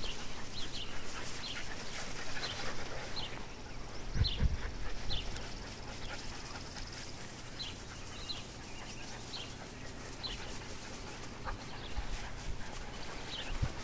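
Dog's squeaky toy squeaking in short, high squeaks, roughly one a second at an uneven pace, as an English Springer Spaniel bites down on it while carrying it. A low rumble on the microphone about four seconds in.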